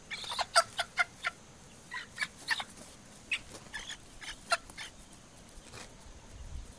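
A hen gives about a dozen short, sharp squawks in quick succession, distress calls as a puppy seizes it by the head. The calls stop about five seconds in.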